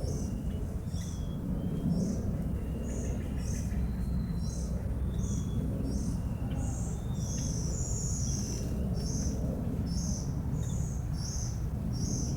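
Birds calling: a long series of short, high chirps, roughly one or two a second, with a few fainter thin whistles, over a steady low rumble.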